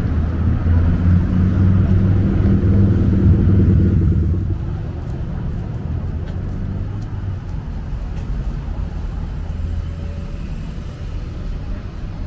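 Street traffic. A motor vehicle's engine runs close by with a low, steady drone for the first four seconds or so, then fades to a softer, even traffic rumble.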